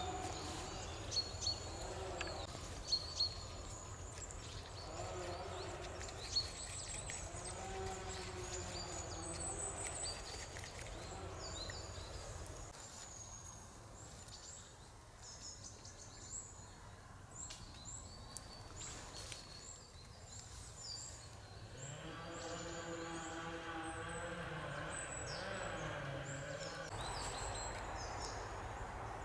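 Small woodland birds chirping and calling over a low steady rumble, with a few sharp clicks in the first few seconds. A faint steady drone comes through for a few seconds near the end.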